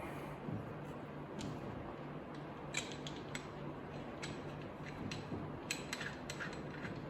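Light metallic clicks and clinks, in a few small clusters, from handling a bolt and flange washer on a lathe arbor, over a faint steady hum.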